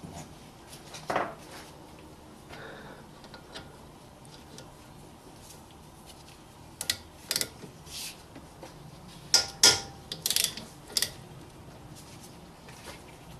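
Metal tool clinks and knocks while the 14 mm lower bolt of a front brake caliper is being undone: a single sharp clink about a second in, then a cluster of clinks and knocks between about seven and eleven seconds in.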